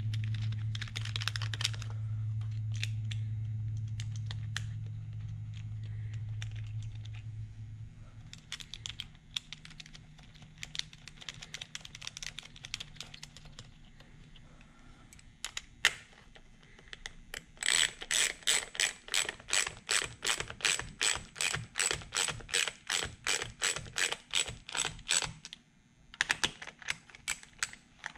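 Small hand ratchet clicking fast and evenly, about four clicks a second, as it runs fasteners down on a car's steering-wheel airbag module; the run starts just past halfway, breaks off briefly and picks up again near the end. Before it there are scattered small clicks of parts being handled over a low steady hum.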